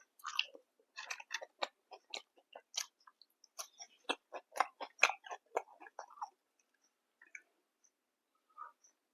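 A person chewing food close to the microphone, several chews a second for about six seconds, then only a few scattered faint mouth sounds.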